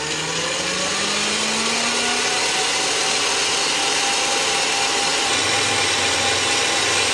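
Stand mixer motor running with its wire whisk beating whipping cream and powdered sugar in a stainless steel bowl, a steady mechanical whir. Its whine rises in pitch over the first two seconds, then holds steady as the cream thickens toward stiff peaks.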